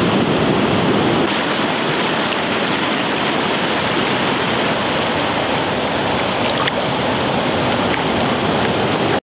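River water rushing steadily, close to the microphone, with a few faint ticks in it; it cuts off suddenly near the end.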